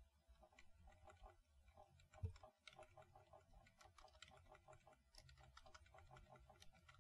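Faint computer keyboard keystrokes, a quick run of small key taps as lines of code are deleted, with one slightly louder tap a little over two seconds in.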